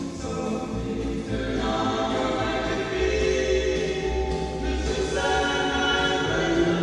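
Background music: a distorted, creepy-sounding rendition of a 1950s close-harmony pop song, several voices holding sung chords over a low bass.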